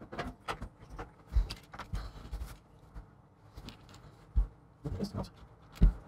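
Desk handling noises: a paper towel being laid out and rustled, with several soft thumps and clicks as a plastic charger brick is handled and set down on it.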